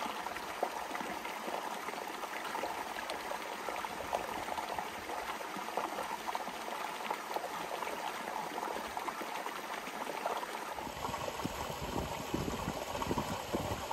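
Small, shallow mountain creek trickling and splashing over rocks in a little cascade, a steady fine crackle of water. About eleven seconds in, the sound shifts and a low rumble joins it.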